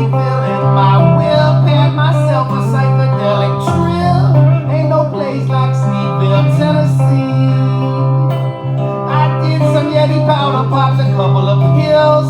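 Live acoustic country-blues song with plucked acoustic guitar and a steady low note held underneath.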